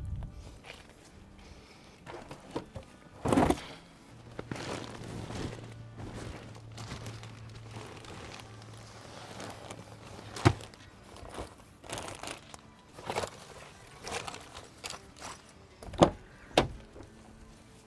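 Light background music over scattered thuds and knocks of bags and bundles being handled in a car's cargo area, with a sharp thunk about ten seconds in. A car door latch clicks open near the end.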